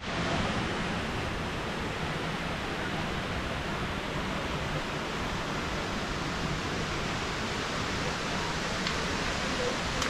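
Ouzoud Falls: the steady, even rush of falling water.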